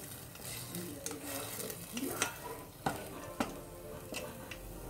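Chicken breast pieces sizzling in hot oil in a stainless steel pot while a black utensil stirs them, knocking against the pot a few times in the second half.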